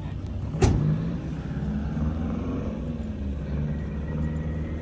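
1989 Chevrolet Caprice police car's 350 V8 idling steadily. A single sharp knock comes just under a second in.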